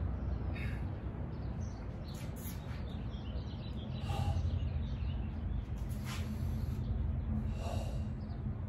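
Steady low background rumble of outdoor ambience, with about five short, faint higher sounds spaced a second or two apart.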